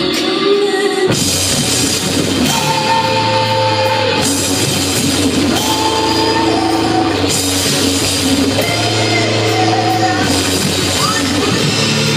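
Live post-punk rock band playing: electric guitar, bass, drums and a singer holding long notes. The drums and cymbals come in about a second in, and the band then plays on steadily.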